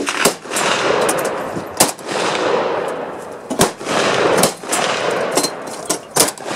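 Rifle shots from several guns on an outdoor firing line, at irregular intervals: about six loud, sharp reports and some fainter ones, each trailing off in a long echo.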